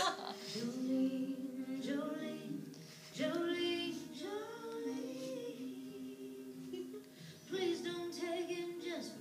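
A woman's voice singing unaccompanied, slow held notes in a soft melody, with short breaths between phrases about three and seven seconds in.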